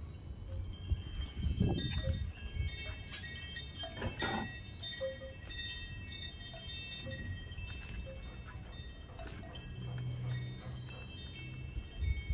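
Wind chimes ringing: several high metallic tones at different pitches overlap and linger, over a low rumble, with a couple of short rustles about two and four seconds in.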